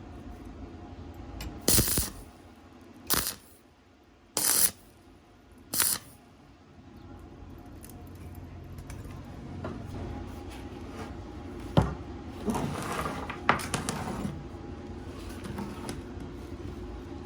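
Metal parts being handled: four short, sharp metallic scrapes or clanks in quick succession, then a click and a spell of light metallic rattling and clinking.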